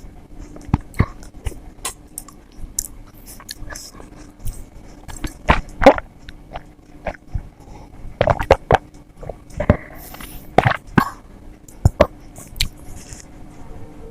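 Close-miked chewing and mouth sounds of someone eating soft idli with sambar and chutney: wet smacks and lip clicks at irregular intervals, busiest and loudest in the middle and the second half.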